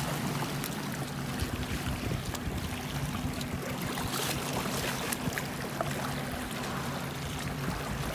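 Small sea waves washing and splashing against shoreline boulders, with wind noise on the microphone.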